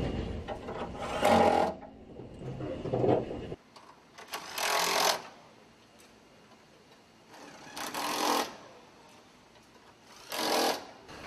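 Short mechanical bursts from a machine or power tool, each about half a second long and a few seconds apart.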